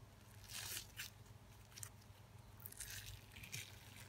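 Activated no-glue slime made from peel-off face mask and borax being squeezed and stretched in the hands, giving faint, irregular crackling and squishing sounds, the weird sound this slime makes once it is activated.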